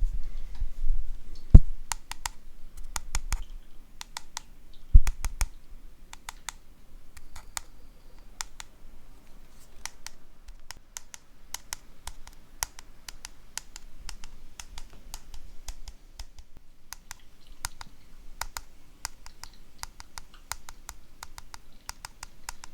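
A close run of short, sharp clicks and taps at an uneven pace of several a second, with two louder low thumps in the first five seconds.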